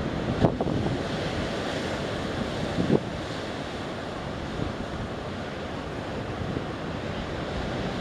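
Sea waves washing against a rock and concrete-tetrapod breakwater, with wind buffeting the microphone; a few sharp gusts thump in the first three seconds.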